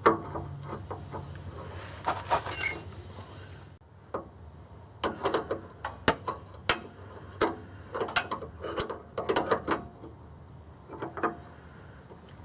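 Wrench tightening a threaded fuel-line fitting into a canister fuel filter, giving several short runs of quick metallic clicks.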